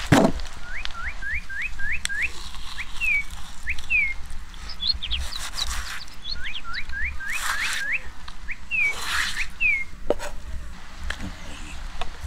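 A bird calling: two runs of quick rising whistled notes, five or six a second, each run ending in two slower falling notes, with higher chirps between the runs. A few sharp knocks sound under it, the loudest at the very start, as a knife cuts fish on a wooden chopping block.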